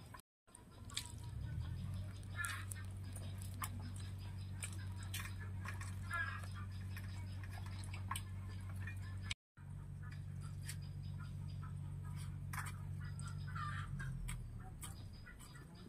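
Soft eating sounds, hands working rice on steel plates and chewing, with hens clucking now and then and a steady low hum underneath.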